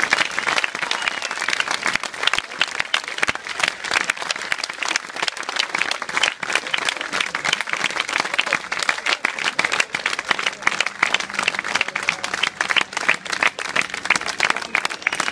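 A large crowd applauding, with dense, steady clapping.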